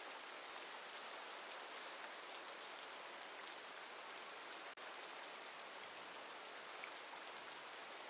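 Steady rain: an even hiss of falling drops, broken by a momentary dropout about halfway through.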